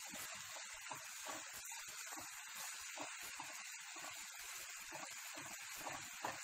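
Chopped tomatoes, coriander and chillies frying in a pan with a faint steady sizzle, while a wooden spatula stirs and scrapes through them in short, irregular strokes. One slightly louder knock of the spatula comes near the end.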